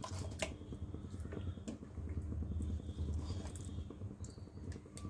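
A spatula stirring thick curry gravy in a steel pot, with a few light clicks over a low steady rumble.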